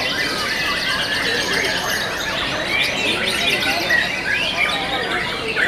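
Caged white-rumped shamas (murai batu) singing, several birds overlapping in a dense, unbroken tangle of rapid whistles and trills.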